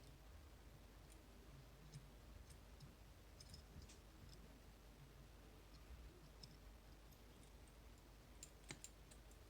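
Faint, scattered clicks and ticks of a pick working the sliders inside a MIWA magnetic slider cam lock, with a few sharper clicks close together near the end.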